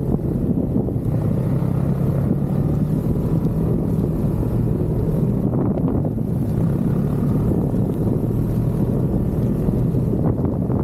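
Snowmobile engine running steadily while riding, with wind buffeting the microphone.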